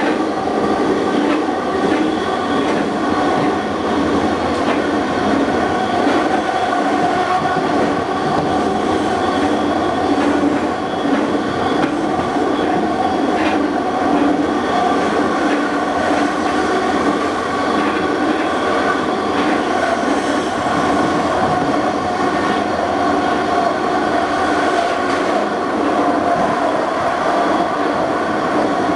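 Toronto Scarborough RT ICTS car running along the line, heard from inside the car. The steady running noise carries a whine of several held tones from its linear induction motor drive, with a few faint clicks from the wheels on the track.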